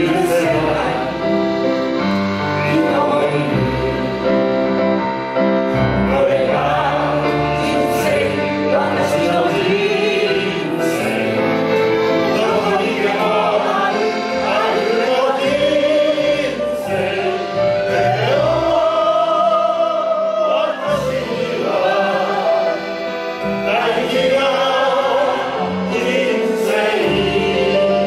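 A small mixed group of men and women singing a Japanese song together into microphones, accompanied by upright bass and piano.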